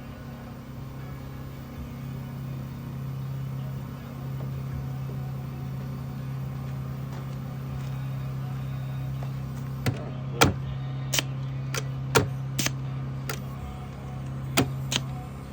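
Air compressor motor running with a steady hum. From about ten seconds in, a quick series of sharp knocks and clicks, around eight within five seconds.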